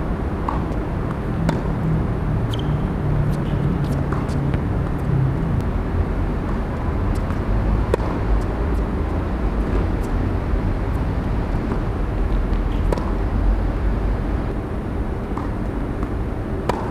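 Sharp pops of a tennis ball struck by rackets and bouncing on a hard court, one to a few seconds apart, during two rallies. Under them runs a steady low rumble of traffic.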